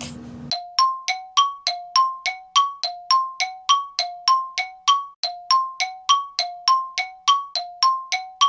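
A quick, even run of short metallic dings, about three or four a second, alternating between a lower and a higher note: a ticking-clock sound effect laid over a time-lapse.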